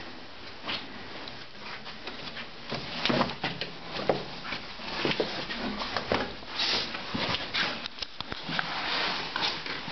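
Irregular knocks, scuffs and rustling of someone climbing down steep brick cellar steps, with the camera being handled close to the microphone. The knocks and scrapes come thicker from about three seconds in.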